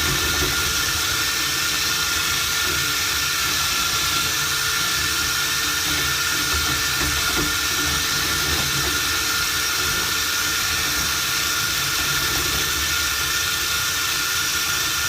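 Dryer-vent cleaning equipment running steadily in the duct: a constant motor whine under an even hiss of rushing air.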